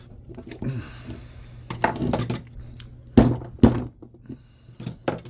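Metal tools knocking, clinking and scraping against an electric motor's stator while its copper windings are pried and cut out by hand. There are two loud knocks about half a second apart past the middle, with smaller clinks around them.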